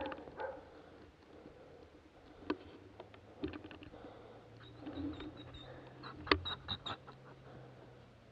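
Footsteps rustling through brush and dry twigs snapping, with a few short dog barks.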